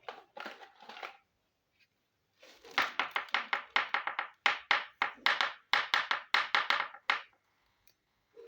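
Small plastic toy pieces and their plastic packaging being handled. A few light clicks come first, then from about two and a half seconds in a quick, even run of crinkling, clicking strokes, about three or four a second, which stops shortly after seven seconds.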